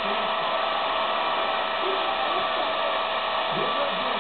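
Hair dryer running steadily: an even rush of air with a constant motor whine.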